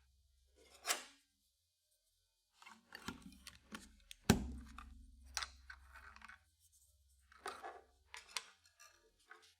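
Mechanical keyboard with Kailh switches, keys pressed one at a time in scattered strokes rather than steady typing: separate clicks and clacks, the loudest one sharp at about the middle.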